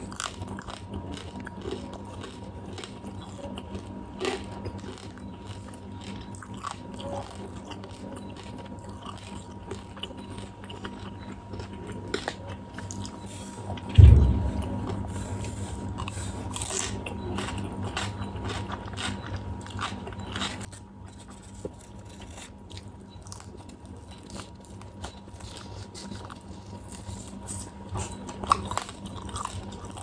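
Close-miked eating: bites and crunches into fried quail and raw cucumber, with chewing in between. A single loud low thump comes about halfway through.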